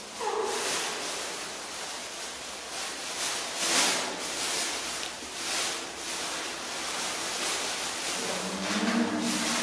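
Clear plastic bag crinkling and rustling as hands open it and work food out onto a plastic plate, with louder surges about four and five and a half seconds in.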